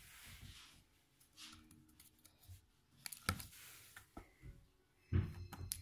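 A cat clawing and batting at a sisal-rope scratching post: scratchy rustling with scattered knocks and taps, the loudest thump about five seconds in.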